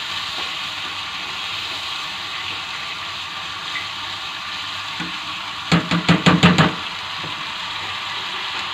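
Water with sautéed garlic and spices sizzling and bubbling steadily in a nonstick frying pan, stirred with a spatula. A quick run of about six sharp knocks comes about six seconds in.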